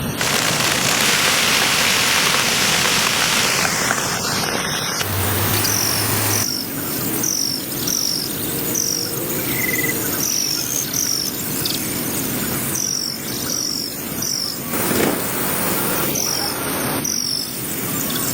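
Outdoor nature ambience: a steady hiss, louder for the first four seconds, with short high chirps, each falling in pitch, repeating about twice a second from about five seconds in.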